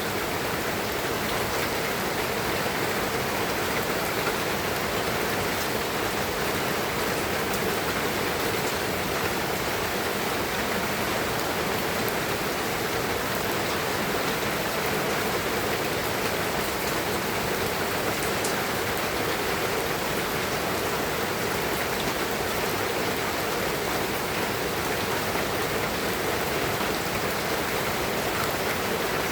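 Steady rain falling: an even, unbroken hiss with fine ticks of individual drops.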